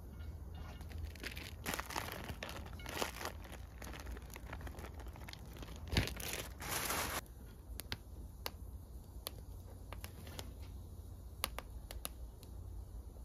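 Crinkling and rustling handling noise, strongest between about two and seven seconds in, followed by scattered light clicks and taps.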